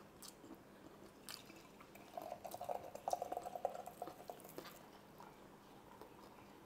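A drink being poured into a glass, running for about two and a half seconds from about two seconds in, after a couple of light clicks.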